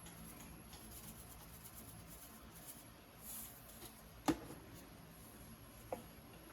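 Quiet kitchen handling sounds: a soft rustle about three seconds in, then a sharp click a second later and a softer click near the end.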